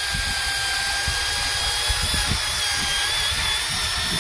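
AC Delco 3-inch cordless rotary polisher running steadily with a high motor whine, its foam pad buffing polish into a boat's gel coat to take out scuffs.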